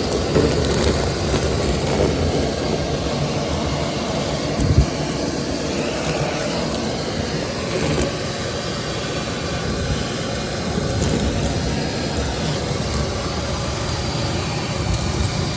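Vacuum cleaner running steadily with a loud motor and airflow noise, with a brief knock about a third of the way in.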